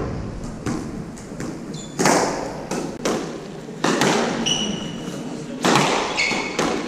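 Squash rally: the ball cracking off rackets and the court walls in sharp hits every second or so, each with a short echo. Shoes squeak briefly on the wooden court floor a couple of times between shots.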